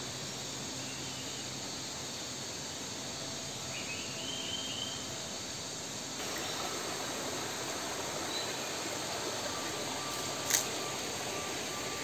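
Steady forest ambience, a hiss of insects, with a short warbling bird call about four seconds in and a single sharp click near the end.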